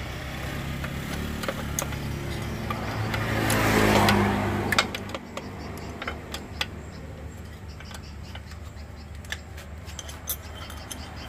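A motor vehicle's engine passes by, growing louder to a peak about four seconds in and then fading to a low rumble, with scattered sharp metallic clicks and clinks of tools.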